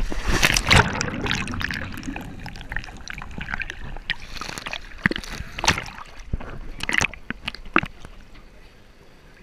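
Seawater splashing and sloshing against an action camera as its wearer jumps into the sea, the loudest splash about half a second in, then scattered smaller splashes and lapping that die away as he floats at the surface.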